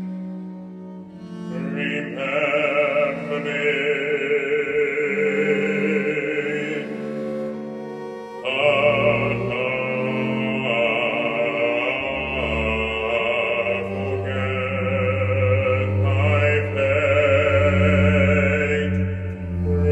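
A baritone voice singing long, held operatic notes with vibrato, accompanied by violin and cello, with a low sustained cello line in the second half.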